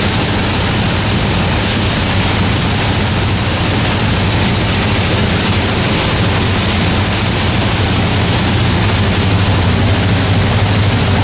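Boat under way: a steady engine drone under a loud, even rush of wind and water noise.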